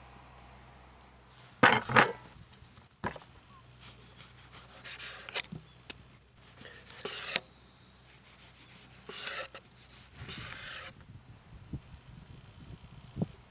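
Short bursts of scraping and rubbing, about six strokes, the loudest two close together about two seconds in, with a few sharp knocks between them.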